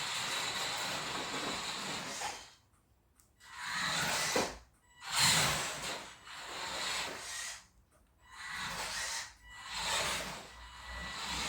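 Toy RC cars driving: a small electric motor whirring and plastic wheels rolling and rubbing over the ground, the red Project MC2 H2O car being towed behind another RC car. The sound swells and fades several times and drops almost to silence three times, once near 3 s, briefly near 5 s and again near 8 s.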